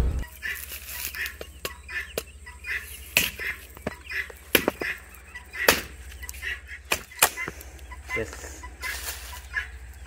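Curved billhook chopping into the dry husk of a sprouted coconut resting on a rock: a series of sharp chops, the clearest about three, four and a half, five and a half and seven seconds in.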